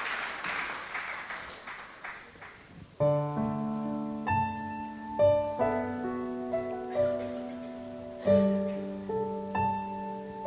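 Clapping dies away over the first couple of seconds, then about three seconds in a piano starts playing a slow melody over held chords, the opening of a song.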